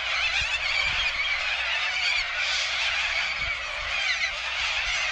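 A large flock of birds calling continuously, many high calls overlapping into one dense chorus.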